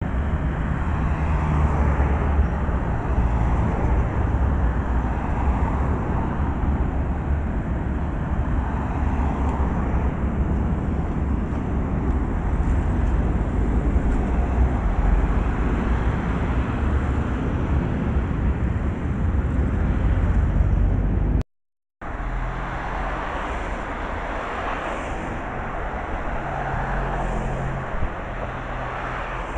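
Road traffic: cars passing on a street over a steady low rumble. The sound cuts out for about half a second a little over two-thirds of the way through, then resumes.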